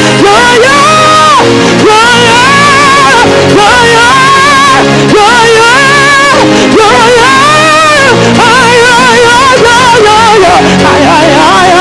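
Live gospel worship song: a singer holding long sung phrases with a wavering vibrato over steady chords from a backing band.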